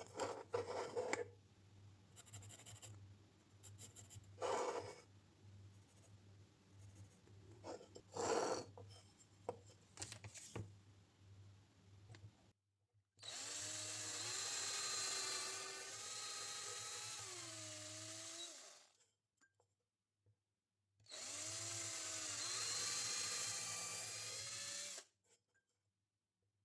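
A few knocks and handling noises on the workbench, then a power drill running in two bursts of several seconds each, the first starting about halfway through. Its pitch dips and recovers as it comes under load.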